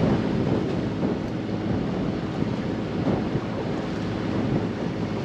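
Steady wind buffeting the microphone over the rush of water along the hull of a yacht under way.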